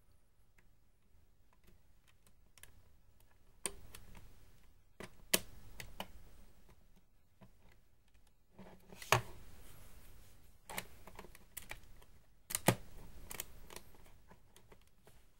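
Plastic clicking and rattling from a LEGO model pistol being handled and its mechanism worked, with several sharp clicks a few seconds apart and quieter clicks between.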